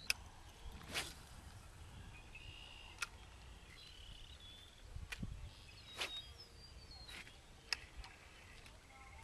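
Outdoor ambience with birds giving short chirps and calls, one a quick descending run about halfway through, over a faint low rumble. A few sharp clicks are scattered through it.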